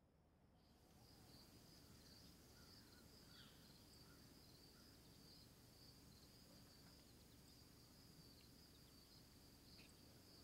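Faint outdoor ambience of crickets trilling steadily, with a few soft bird chirps, fading in from silence over the first second or so.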